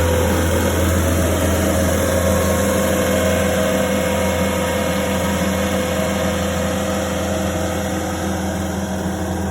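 Caterpillar skid steer's diesel engine running steadily, a constant low drone that eases off slightly toward the end.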